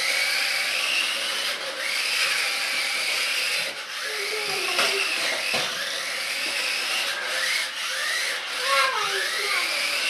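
Nikko radio-controlled Citroën DS3-R toy car's small electric motor and gears whining, the pitch rising and falling again and again as it speeds up and slows. Its tyres rub on a wooden parquet floor.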